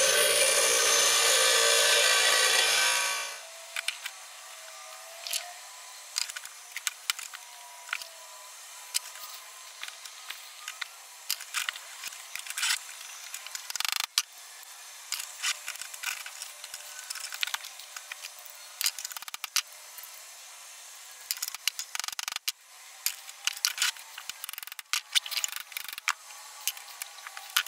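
Bench grinder grinding a mild-steel hook for about three seconds, then giving way to quieter hand work on the metal: scattered sharp clicks and scrapes.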